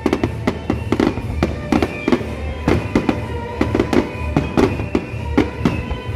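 Fireworks going off in a rapid, irregular string of bangs, with music playing underneath.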